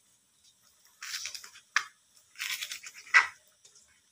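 Kitchen knife slicing spring onion stalks on a plastic cutting board: four short cuts starting about a second in, two of them ending in a sharp tap of the blade on the board.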